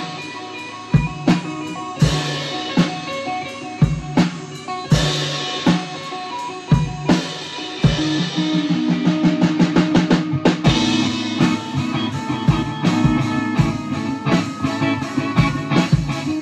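Live improvised jam by a small band: electric guitar, drum kit and trumpet playing together. The drums strike steadily under held notes, with a quick run of dense drum hits about halfway through.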